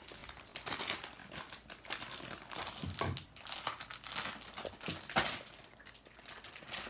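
Plastic toy packaging crinkling and crackling in irregular bursts as a child's hands handle a squishy toy in its bag.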